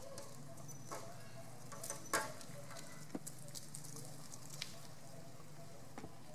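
Steady low outdoor background hum with scattered short clicks and taps; the sharpest click comes about two seconds in.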